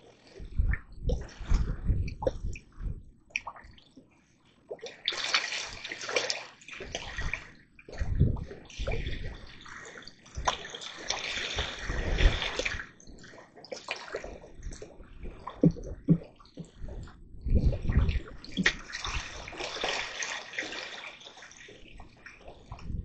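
Water sloshing and splashing in irregular bursts, with low bumps and knocks mixed in.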